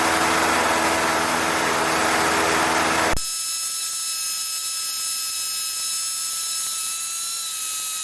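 Cessna 152's four-cylinder Lycoming engine droning steadily in flight, heard in the cockpit. About three seconds in the engine sound cuts off abruptly, leaving only a steady high electrical whine and hiss from the radio/intercom audio feed.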